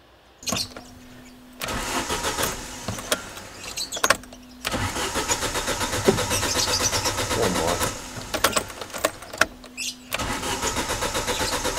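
Starter motor cranking the Ford Bantam's 1.3 ROCAM four-cylinder engine in three attempts, a rhythmic chugging that never catches. The engine will not fire because the new coil pack's electrical plug was left disconnected. A steady low hum sounds in the short gaps between attempts.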